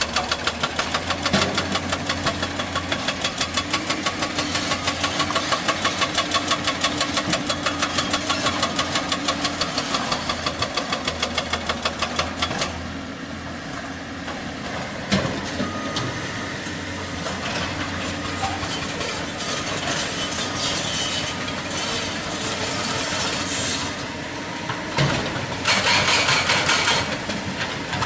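Excavator-mounted hydraulic breaker hammering rock in rapid, even blows over the excavator's diesel engine. The hammering stops after about twelve seconds, leaving the engine running with a few single knocks, and starts again near the end.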